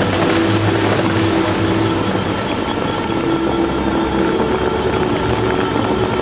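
Bellagio fountain water jets spraying and falling back into the lake: a loud, steady rushing hiss of water with no breaks.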